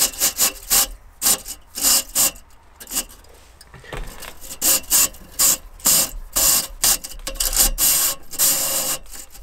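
Chimney brush on a flexible rod scraping up and down inside a 5-inch stainless steel stove pipe, scrubbing soot from its walls. A quick, uneven series of scraping strokes, with a short lull about three seconds in.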